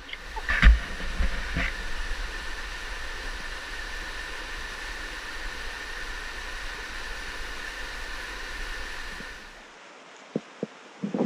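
Wind rumbling on the microphone: a steady rushing noise with a faint high whine and two knocks about a second in. It drops away shortly before the end, leaving a few sharp knocks.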